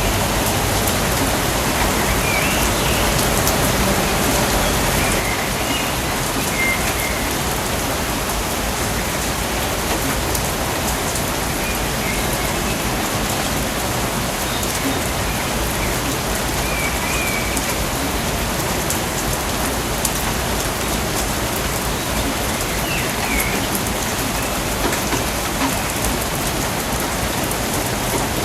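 Steady rain falling in a rainforest, an even hiss with no let-up, with a few faint high chirps now and then.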